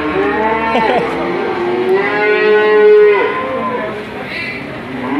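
Cattle mooing: one call ending about a second in, then a longer, louder moo from about two seconds in that lasts over a second.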